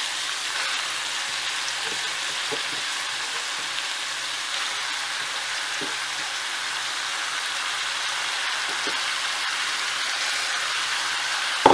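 Steady sizzling of oil and fried meat and sausage in a frying pan as shredded cabbage and carrot are tipped in from a bowl on top of them. A few faint knocks, and a sharp knock right at the end.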